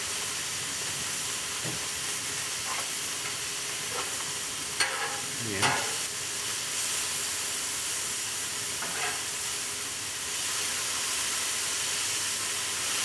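Chopped vegetables sizzling and steaming on a hot Blackstone flat-top griddle, a steady hiss, while a metal spatula stirs and scrapes them. A couple of brief louder scrapes come about five and six seconds in.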